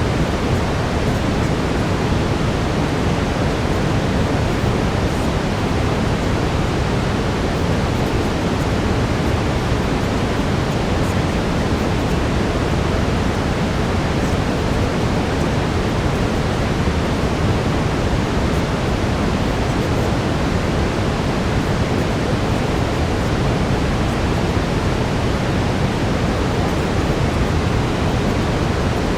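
Steady brown noise: an even, rushing hiss with most of its weight in the low range.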